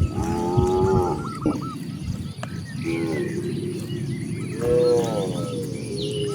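Cows mooing, several calls from the herd: a long moo at the start, a short one about three seconds in, a louder drawn-out moo near five seconds, and a brief one at the end.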